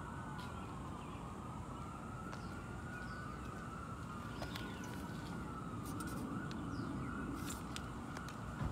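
Distant siren wailing, its pitch rising and falling slowly, over a low steady rumble of street background.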